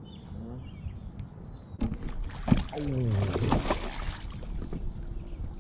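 A hooked largemouth bass thrashing and splashing at the water's surface while being fought on the line. The splashing comes in a burst starting about two seconds in, with a sharp splash near the middle, and dies down after about four seconds.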